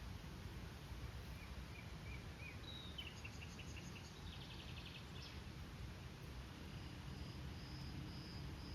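Faint steady rush of a river with small birds chirping over it: short notes and trills, then a high note repeated several times near the end.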